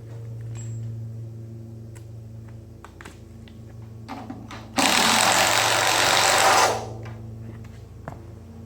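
A power tool runs in one loud burst of about two seconds, roughly halfway through, over a steady low electrical hum.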